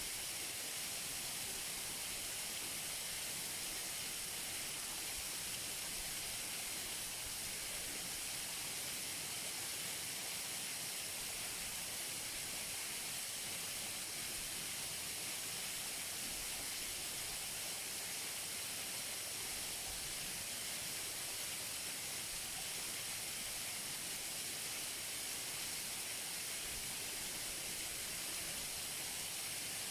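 Waterfall close up: water falling and splashing in a steady, even rush that is mostly high and hissy, with little low rumble.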